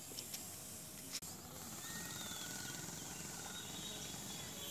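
Faint outdoor background: a steady hiss with a few short, thin high chirps from about two seconds on. A single click comes just over a second in.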